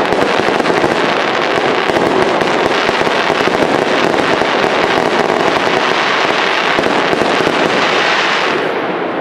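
Fireworks crackling densely and without a break, a fast rattle of countless small reports from crackling star and fountain effects, thinning out near the end.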